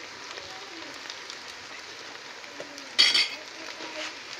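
Mutton kharda sizzling in a steel pot over a wood fire as it is stirred with a steel spatula, a steady hiss. About three seconds in, one short, sharp, loud knock with a ringing edge.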